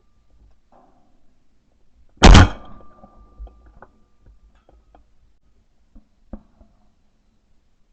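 One shot from a Franchi Affinity Elite 3.5 semi-automatic 12-gauge shotgun about two seconds in, a sharp blast that dies away within about half a second, followed by a few faint clicks and knocks.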